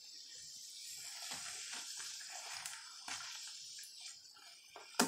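Bath bomb fizzing in bathwater, a steady hiss with faint crackling, as a hand squeezes the remaining chunk under the water. A single sharp tap comes right at the end.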